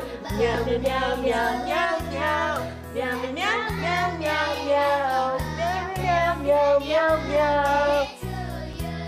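Music: a song with a high singing voice over a bass line that changes notes about once a second.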